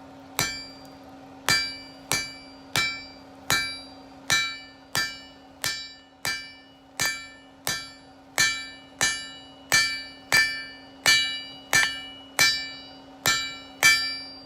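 Blacksmith's hammer striking hot steel on an anvil: about twenty ringing blows at a steady pace of roughly one and a half a second, forming the first leaf on the split end of a planter stake.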